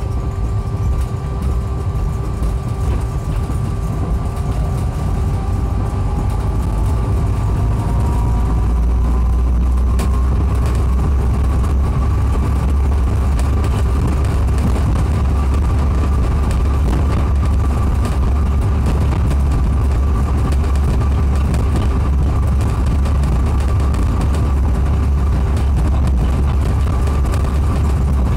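Heathrow pod, a battery-electric driverless rapid-transit car on rubber tyres, heard from inside the cabin as it pulls away and speeds up: a motor whine rises in pitch over the first several seconds and then holds steady. Under it a low running rumble grows louder and then stays even once the pod is at cruising speed on the concrete guideway.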